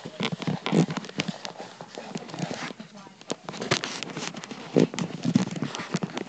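Irregular knocks, taps and rustling of a phone being handled with its lens covered, with fingers or fabric rubbing right against the microphone.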